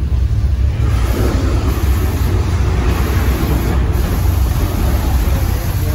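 Effects of the Earthquake attraction's simulated quake: a deep, continuous rumble, with a loud rushing, hissing noise joining it about a second in.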